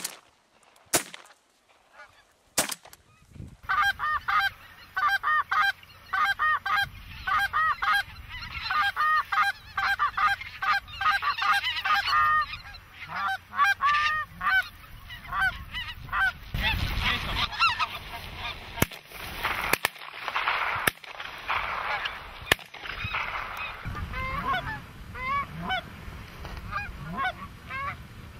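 A large flock of wild geese calling, many overlapping short honks repeated over and over, beginning about three and a half seconds in. Before that come a few sharp knocks, and a low rumble lies under the calls in the second half.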